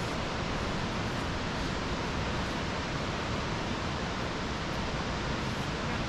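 Steady rush of falling water from a waterfall, an even hiss with no break or change.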